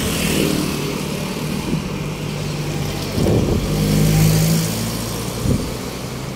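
Street traffic: a motor vehicle's engine running close by, growing louder about halfway through as it passes, over steady road noise.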